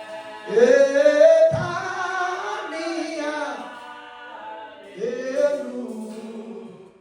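Unaccompanied singing of a worship chorus, in a few held phrases. The loudest phrase comes about half a second in and another near the end.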